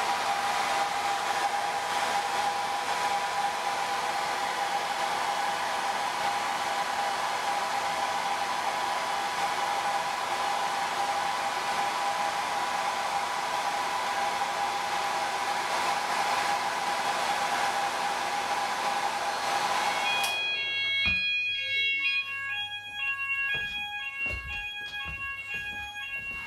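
Handheld hair dryer blowing steadily with a constant motor whine, held up to a multi-sensor fire detector to heat it. It cuts off suddenly about twenty seconds in. Then come fire alarm sounders: a repeating pattern of short beeping tones at several pitches.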